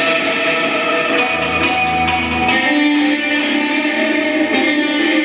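Soundtrack music on guitar, playing long held chords that change about a second in and again near the middle, with a deep low note sounding under part of it.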